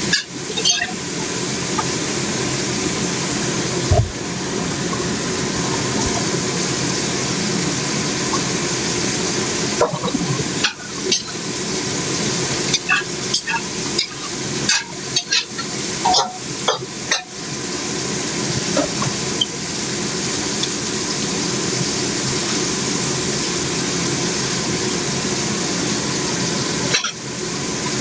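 Food frying in a pan, a steady sizzle, with a run of clicks and knocks from stirring in the middle.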